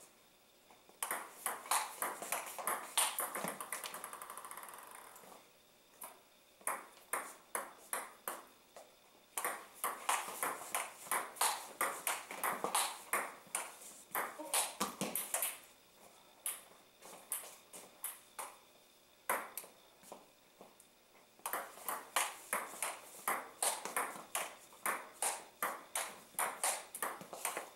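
Table tennis ball clicking back and forth off paddles and table in fast rallies, about three to four sharp clicks a second, with short pauses between points.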